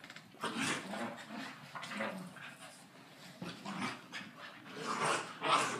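A fawn Boxer puppy and a beagle play-fighting, heard as dog panting and breathing in short, irregular noisy bursts, loudest near the end.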